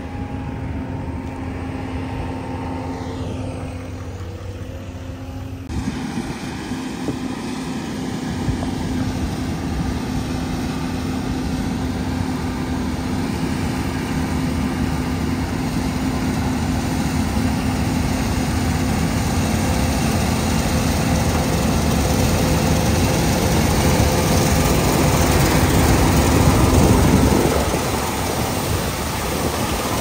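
John Deere combine running while harvesting soybeans through a MacDon FlexDraper header: a dense, steady drone of engine, machinery and crop noise that slowly grows louder, easing off a few seconds before the end. The first few seconds hold a steadier vehicle engine hum.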